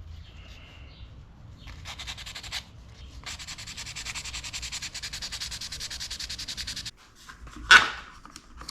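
Sandpaper rubbed back and forth over the steel of a forged knife blade in fast, even strokes, several a second, smoothing the transition where the handle scales meet the blade up to a finished grit. A single short, loud knock comes near the end.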